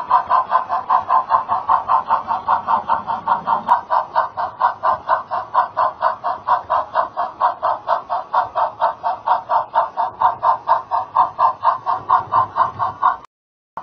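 Sound of the On30 model Mogul steam locomotive chuffing steadily, about five chuffs a second, with a thin small-speaker sound lacking bass. It cuts off abruptly near the end.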